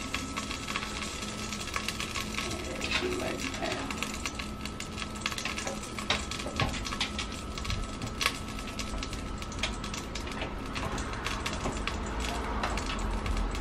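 Wet lasagna noodles being laid and pressed by hand into a metal roasting pan: irregular light clicks and taps on the metal over a steady background hiss.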